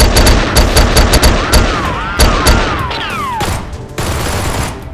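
Gunfight sound effects: rapid volleys of gunshots in quick bursts, with whistling, falling whines like passing bullets or ricochets in the middle.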